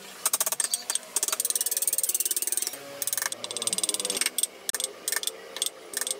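Hand carving chisel cutting and scraping into wood in short strokes: fast runs of chattering clicks with squeaky scraping, thinning to scattered clicks in the second half.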